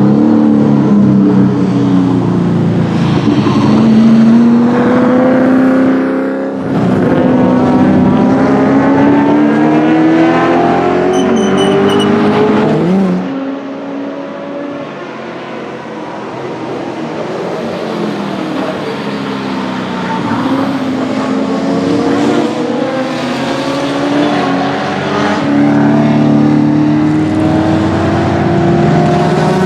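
A Group A Ford Mustang GT's 5.0-litre V8 racing engine under hard acceleration, its pitch climbing again and again as it pulls through the gears. There is a sudden break about six seconds in, and the engine drops quieter after about thirteen seconds before building up once more.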